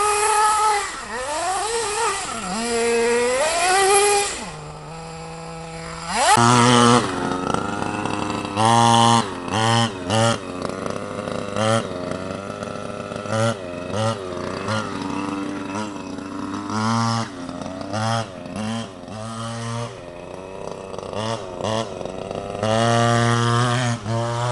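RC car's small engine revving hard. Its pitch sweeps up and down at first, then drops to a quieter steady idle. After that come many short throttle bursts, and a longer held rev near the end.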